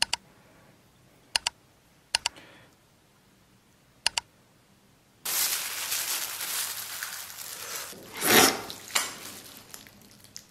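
Four quick double mouse-click sound effects, about a second or two apart. About five seconds in, these give way to loud, wet crinkling and squelching as a plastic-gloved hand pulls apart sauce-covered spicy braised beef knee bones.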